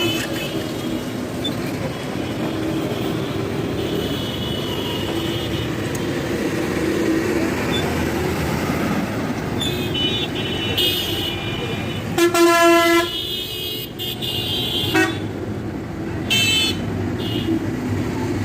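Busy street traffic with vehicle horns honking: a loud horn blast of under a second about twelve seconds in, and several shorter, higher-pitched toots around it, over a steady rumble of traffic.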